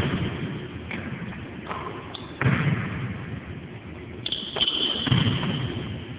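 Basketball thuds: three sharp impacts about two seconds apart, each trailing off with an echo.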